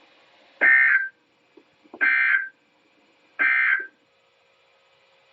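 Three short, identical buzzing data bursts from a NOAA Weather Radio broadcast, about a second and a half apart: the EAS/SAME end-of-message (EOM) code that closes the Required Weekly Test.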